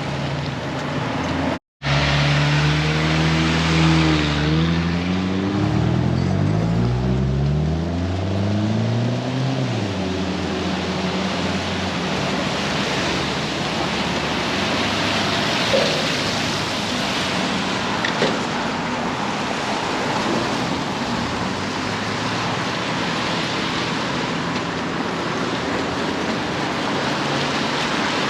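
Car on the move: after a brief cut, the engine note rises and falls for several seconds as it accelerates, then gives way to steady road and tyre noise.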